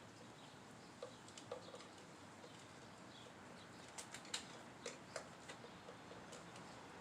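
Faint, irregular small clicks and light taps of hand work on metal motorcycle parts, with a cluster of sharper clicks a little past halfway, over a low steady hiss.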